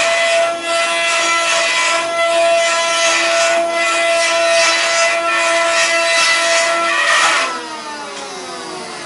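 Multi-spindle CNC wood carving machine running: the spindles give a steady high whine while the cutters grind into the turning wooden balusters. A little after seven seconds the cutting noise stops and the sound drops to a quieter whine that falls in pitch.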